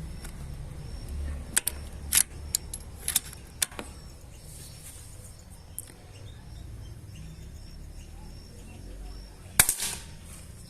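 A run of sharp clicks and knocks in the first few seconds, then one much louder sharp crack near the end with a short ring after it, over a low rumble.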